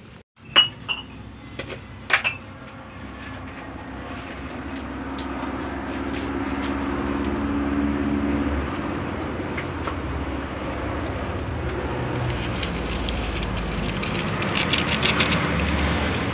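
Fish soup boiling hard in a wide pan over a wood fire: a steady bubbling hiss that builds over the first several seconds and then holds. A few sharp knocks come near the start, and a run of crackles comes near the end.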